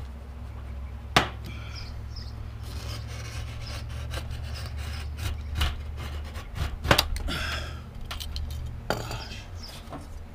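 A utility knife scoring thin galvanized sheet steel along a steel straightedge, in repeated short scraping strokes. There is a sharp click about a second in and a louder one about seven seconds in.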